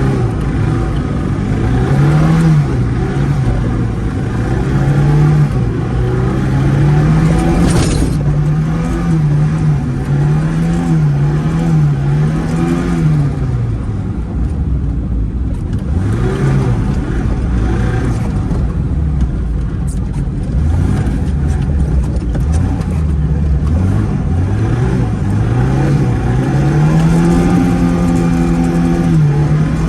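Zhiguli's four-cylinder engine revved again and again while drifting, its pitch rising and falling many times, then climbing to a held higher note near the end.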